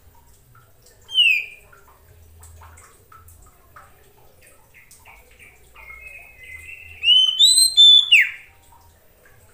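Oriental magpie-robin singing. A single loud downslurred whistle comes about a second in, then a run of soft short notes, then near the end a loud burst of rising and falling whistles that ends in a steep downward slur.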